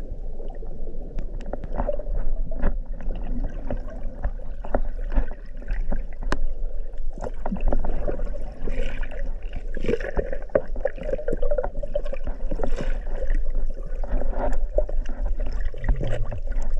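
Water moving and bubbling around an action camera held underwater, with scattered clicks and knocks, turning to splashing and gurgling from about eight seconds in as a freediver in a wetsuit reaches the surface.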